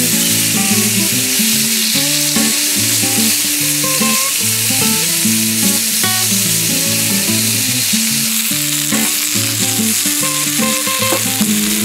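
Thin-sliced meat sizzling hard as it fries in a hinged hot-sandwich pan, turned with chopsticks, with a few light taps. Background guitar music plays underneath.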